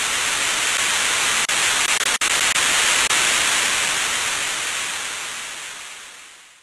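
Television static: a steady white-noise hiss, broken by a few brief dropouts, fading out over the last couple of seconds.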